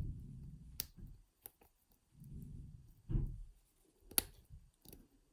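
Lock picks working in an Aldridge CISA 221/50 padlock: a few sharp metallic clicks, the loudest about a second in and again about four seconds in, over soft low handling noise.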